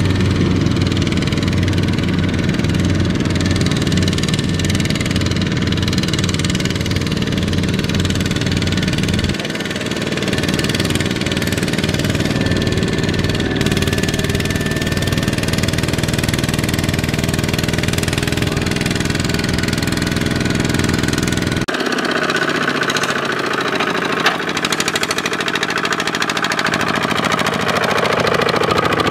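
Two-wheel walking tractor's single-cylinder diesel engine running steadily while pulling a trailer loaded with rice sacks. Its tone changes suddenly about nine seconds in and again about 22 seconds in, with less low rumble each time.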